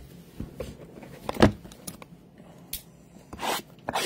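Hands handling trading cards and a cardboard hobby box on a tabletop: scattered light knocks and scrapes, a louder knock about a second and a half in, and a short rustle near the end.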